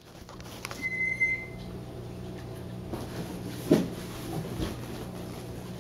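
Faint household sounds under a steady low hum: a brief high squeak about a second in and one dull knock a little past the middle.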